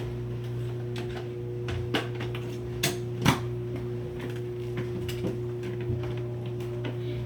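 A few sharp clicks and knocks from the canister vacuum being handled, the loudest pair about three seconds in, over a steady low electrical hum.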